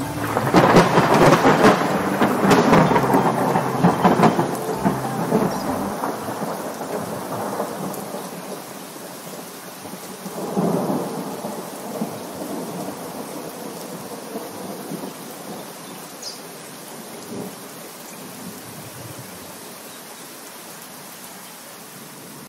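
Thunderstorm: a long, crackling peal of thunder at the start, a second rumble of thunder about ten seconds in, and steady rain throughout that slowly fades.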